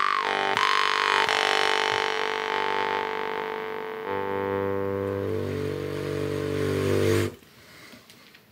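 Jaw harp (drymba) made by Yuriy Vashkovych being played: a low drone with many bright overtones shifting in a melody. The tone fades, is struck again about four seconds in with a stronger, deeper drone, and stops abruptly a little after seven seconds.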